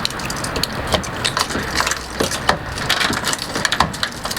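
Keys jangling among a run of small clicks, taps and rustles of handling.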